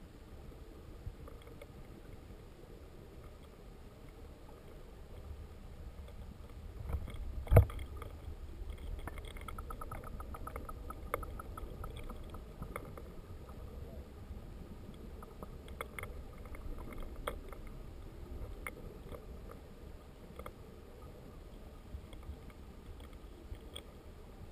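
Underwater sound of a creek pool picked up by a submerged camera: a steady low rumble of moving water with scattered clicks and ticks. There is one loud thump about seven and a half seconds in, and a quick run of ticks a few seconds later.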